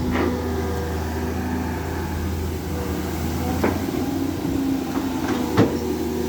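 Dump truck's diesel engine idling steadily, with two sharp knocks in the second half.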